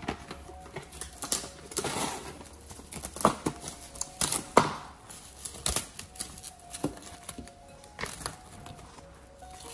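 Plastic cling film crinkling and crackling as it is pulled and stretched over a glass bowl, in sharp, irregular crackles, loudest about halfway through.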